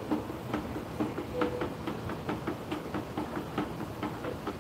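Hand-stirring a bucket of epoxy resin: a mixing stick scrapes and knocks round the bucket in a steady rhythm, about two to three knocks a second.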